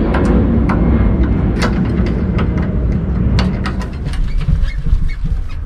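Sharp knocks and clicks of a person climbing up into a truck cab by the grab handle and steps, over a steady low rumble.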